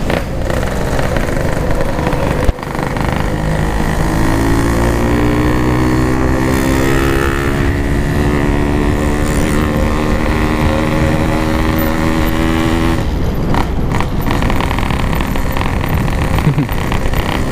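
Yamaha RX-King 135cc two-stroke single-cylinder motorcycle with an aftermarket PK 3 exhaust, being ridden, with heavy wind noise on the microphone. A sharp knock about two and a half seconds in; from about four seconds in the engine note climbs slowly and steadily for some nine seconds, then drops away.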